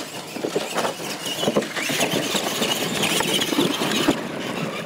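Two radio-controlled monster trucks racing over a dirt course with ramp obstacles: electric motors running and tyres scrabbling on dirt, with repeated knocks and clatters as the trucks go over the obstacles. The loudest running stops about four seconds in.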